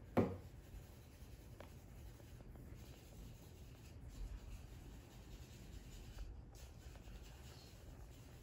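Faint scratching of pencils on drawing paper, with a single sharp knock right at the start and a smaller click about a second and a half in.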